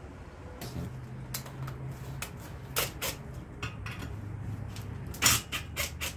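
Cordless drill/driver running at low speed as it backs bolts out of a small KTM 50cc two-stroke engine, with a string of sharp clicks and knocks of the tool and metal parts, the loudest about five seconds in. The bolts come out with no effort at all.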